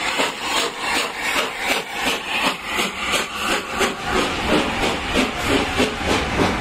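LNER A4 Pacific 60007 Sir Nigel Gresley, a three-cylinder steam locomotive, working past with a quick, even beat of exhaust and hissing steam from its cylinder drain cocks. About four seconds in, its coaches follow, and a low rumble of wheels on the rails takes over.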